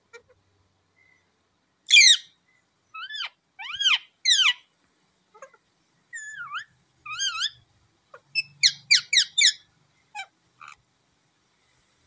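A rose-ringed parakeet chirping in a series of short calls. It opens with a loud, harsh one about two seconds in, follows with rising-and-falling chirps, gives a quick run of about five near the end, then two faint ones.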